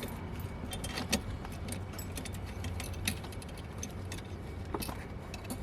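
Irregular light metallic clicks and rattles of screws and an Allen key being handled and worked on a screen mount bracket, over a low steady hum.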